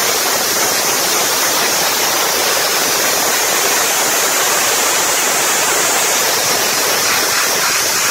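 Dustless wet abrasive blasting nozzle hissing steadily at full flow as the water-and-grit jet strips paint from the armoured hull of an FV434.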